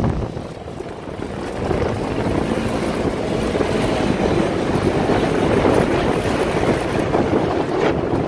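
Polaris RZR side-by-side driving along a dirt trail, heard from the passenger seat of its open cab: engine running with steady ride noise. It gets louder from about two seconds in.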